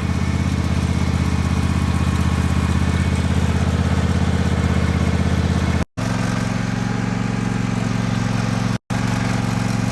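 A small engine running steadily at constant speed. The sound drops out completely twice, and after the first drop the engine note sits slightly differently.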